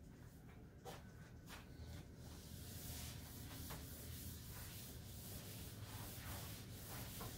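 Chalkboard eraser wiping across a chalkboard, a faint steady rubbing that starts about two seconds in, after a few light knocks.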